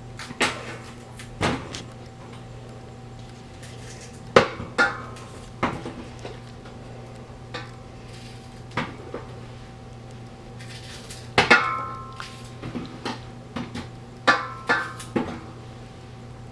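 Irregular knocks and clinks of a kitchen knife and tomatoes against a speckled enamelware roasting pan as tomatoes are cored; the loudest comes about two-thirds of the way through, and a few strikes ring briefly with a metallic tone. A steady low hum runs underneath.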